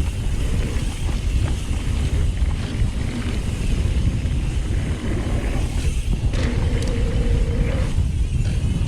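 Mountain bike ridden on a dirt jump trail with heavy wind noise on the microphone. A steady buzz comes in about six seconds in and lasts a second and a half.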